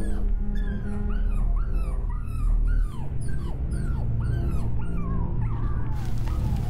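A run of short, whimpering animal cries, about two a second, each rising and falling in pitch, over dark ambient music with a low steady drone. The cries stop about five and a half seconds in, leaving the drone.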